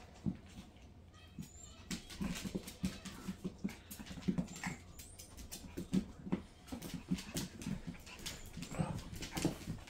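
A Staffy and a tiny Chihuahua puppy play-wrestling: an irregular run of short low grunts and growls, several a second, with scattered sharp clicks and taps.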